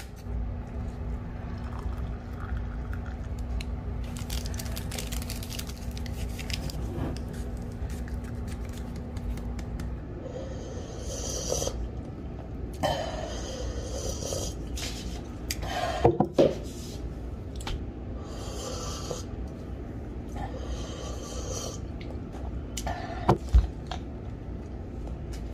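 Ceramic mug handling, scraping and clinking for about ten seconds. Then a man takes several slurping sips of hot coffee, one short burst after another, with sharp knocks of the mug set down on the wooden table about halfway through and again near the end.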